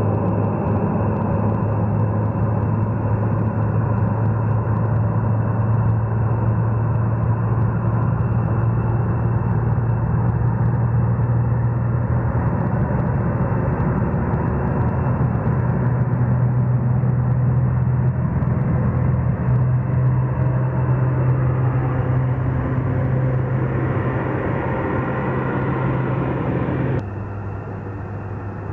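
Four-engine turboprop military transport on its takeoff run at full power: a loud, steady drone with a strong deep propeller hum, swelling slightly as it nears. Near the end the sound cuts off suddenly to a quieter, more distant engine rumble.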